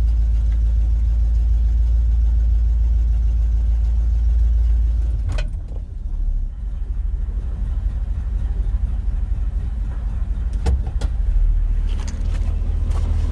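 1980 Chevy chip truck's engine running at low speed with a steady low rumble while the truck is manoeuvred back toward the chipper, the rumble changing about halfway through. A few sharp clicks or knocks come through, one about halfway and several near the end.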